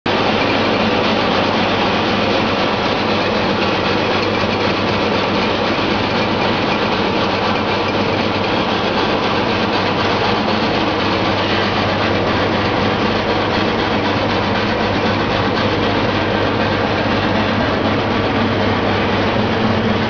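Rotary brush glass bottle washing machine running: brushes spin inside green glass bottles as the carousel turns, giving a steady whir over a constant low motor hum.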